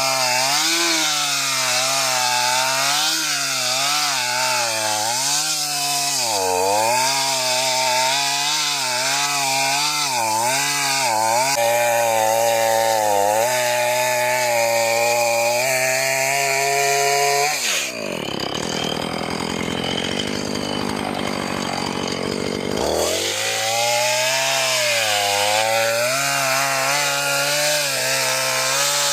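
Two-stroke chainsaw running under load as it cuts into a log, its engine pitch wavering up and down with the cut. About eighteen seconds in, the engine pitch drops away for several seconds, then revs back up.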